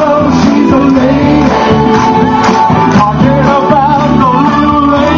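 Karaoke backing track played loud through a PA, with singing over it.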